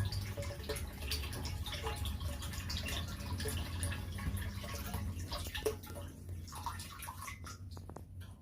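Water pouring and splashing into a tank as it is filled, over a steady low hum from the electric water pump. The water sound thins out and fades over the last couple of seconds.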